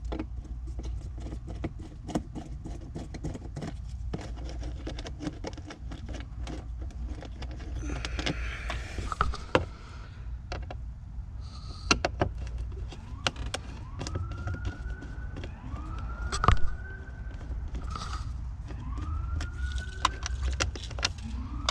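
Scattered clicks and taps of a screwdriver and loose screws while the center console trim is unscrewed. From about two-thirds in, a rising, siren-like tone climbs and levels off four times, about every two and a half seconds.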